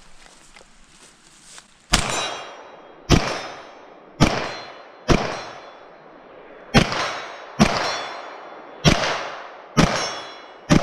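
Nine gunshots fired in a paced string, irregularly spaced about a second apart, starting about two seconds in. Each shot has a ringing metallic tail, steel targets being hit.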